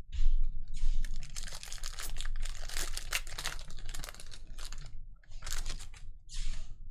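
Trading card packs being torn open, with the foil wrappers crinkling and the cards clicking as they are handled, in dense clusters and then two shorter bursts near the end.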